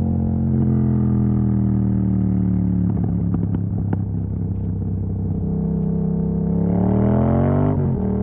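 Yamaha MT-07's parallel-twin engine running through an exhaust with the dB killer removed, on the move: the engine note slowly falls as the bike slows, with some crackle about three to four seconds in. It then rises under acceleration and drops sharply near the end at an upshift.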